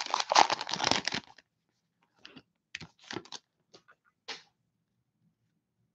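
Plastic cello-pack wrapper of a Donruss basketball card pack crinkling and tearing as it is ripped open, for about the first second. After that come a few short, soft clicks and rustles as the stack of cards is pulled out and handled.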